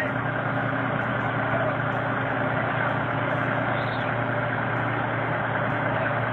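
Bus's diesel engine running steadily, a low hum under a constant noisy hiss.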